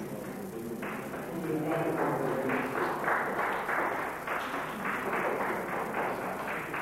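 Audience applauding. It starts about a second in, is densest in the middle, and stops near the end.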